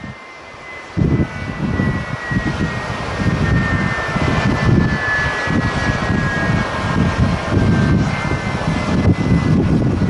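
Strong gusty wind buffeting the microphone in uneven rumbling gusts, dropping away for about the first second, with the steady high whine of jet aircraft engines running under it and sinking slightly in pitch.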